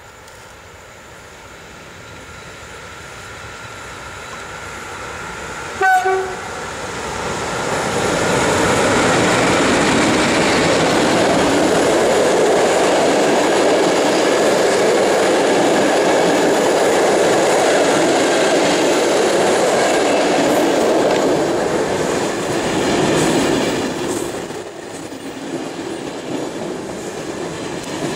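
EP08 electric locomotive hauling a passenger train. It sounds one short horn blast about six seconds in, then passes close, with the rush of wheels on rails growing loud and staying steady while the coaches roll by. The noise eases a few seconds before the end.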